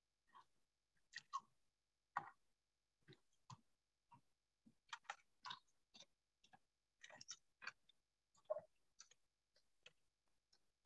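Faint, irregular clicks and crunches of a person eating close to a video-call microphone, a few small sounds a second with short gaps between them.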